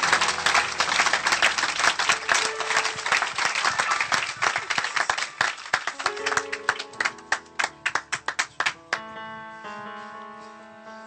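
A congregation applauding over soft instrumental music. The clapping thins to scattered claps and stops about nine seconds in, leaving the music's held notes.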